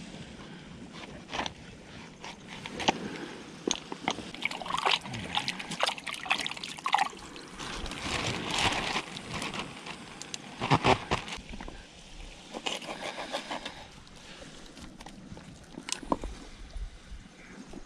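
Water sloshing and trickling, with irregular clicks and knocks throughout; the loudest cluster comes a little past the middle.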